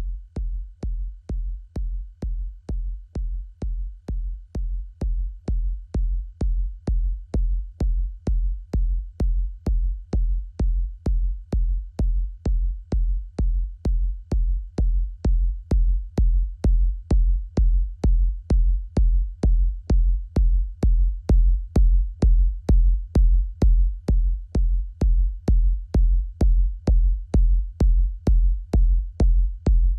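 Electronic techno music: a steady kick drum on its own, about two beats a second, each a deep thump with a sharp click on top. It starts abruptly and grows gradually louder over the first twenty seconds or so.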